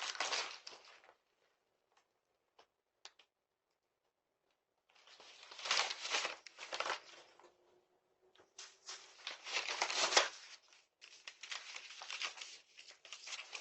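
Faint rustling and scraping noises picked up by a doorbell camera's microphone, coming in three bursts separated by near silence.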